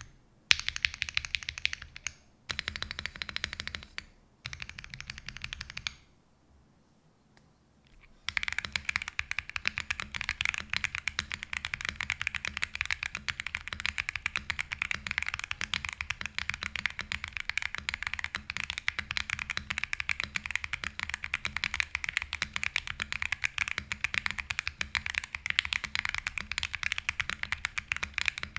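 Mechanical keyboard typing on Akko Creamy Purple Pro tactile switches mounted on a POM plate. Three short bursts of keystrokes come first, then a pause of about two seconds, then fast continuous typing through the rest.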